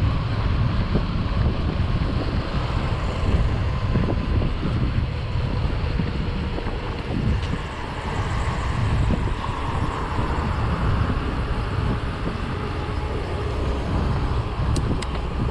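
Steady, loud low rumbling noise with a hiss above it and no distinct events.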